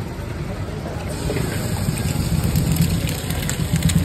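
A steady low engine-like rumble, growing louder, with light sizzling and crackling from eggs frying in oil in a flat iron pan and a few sharp clicks in the second half.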